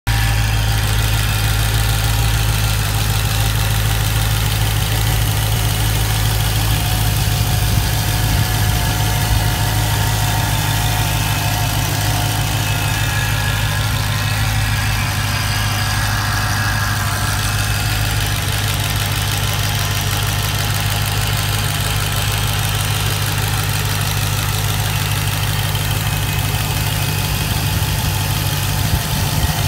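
Supercharged engine idling steadily, its newly fitted supercharger running quietly.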